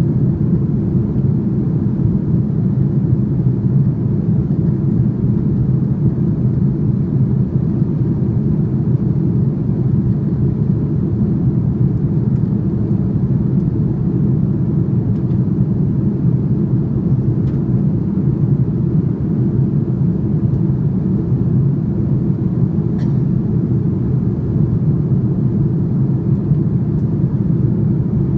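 Jet airliner cabin noise heard at a window seat over the wing in flight: a steady low rumble of the engines and rushing air.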